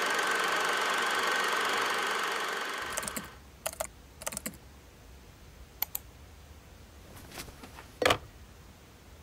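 A steady hiss of film-style static for about three seconds, then a quiet stretch with scattered sharp taps of someone typing on a computer keyboard, the loudest tap about eight seconds in.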